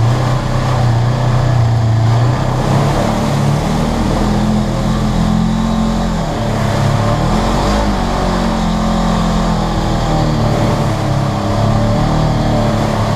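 Polaris RZR 900 side-by-side's twin-cylinder engine running under load, heard from inside the cab, its pitch rising and falling as the throttle comes on and off.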